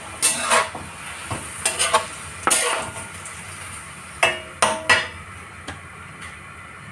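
Metal slotted turner scraping and stirring through vegetables and meat in a stainless-steel honeycomb wok: a run of quick sharp scrapes in the first five seconds, then only faint stirring.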